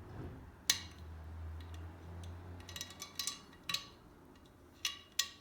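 Sharp metallic clicks and taps, about eight scattered over a few seconds, from a shotgun choke tube and its choke wrench being handled and tightened at the muzzle of a 12-gauge over-under barrel.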